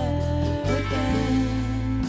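Music: a slow acoustic song with guitar.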